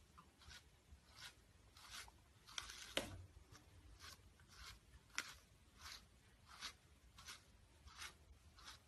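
Faint, regular brushing strokes of a small brush through a corgi's fur, a little under two strokes a second.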